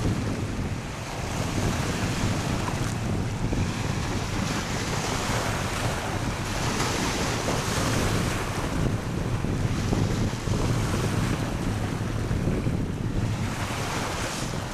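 Wind buffeting the microphone over the wash of sea waves on the shore, a steady rush of noise that swells and eases every few seconds.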